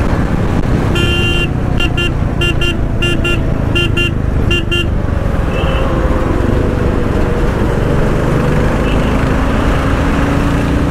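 Royal Enfield Classic 350 single-cylinder motorcycle running at road speed under heavy wind rush. A vehicle horn sounds a long beep and then a quick string of short beeps between about one and five seconds in.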